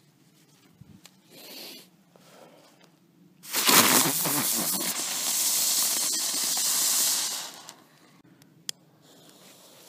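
A small category 1 ground firework burning with a loud, steady hiss for about four seconds, starting about three and a half seconds in and dying away; a single sharp click follows about a second later.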